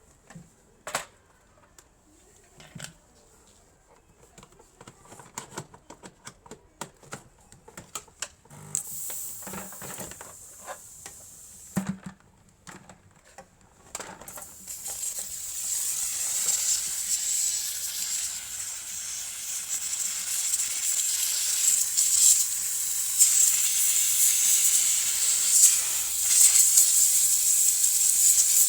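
Scattered clicks and knocks of handling, a short hiss about a third of the way in, then about halfway through a spray starts hissing steadily and grows louder: cleaning spray washing the car's air-conditioning blower fan.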